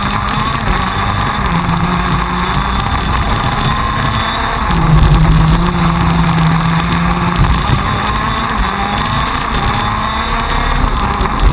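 TM 125cc two-stroke KZ2 shifter kart engine at racing speed, its revs climbing and dropping again and again as the kart accelerates out of corners and through the gears.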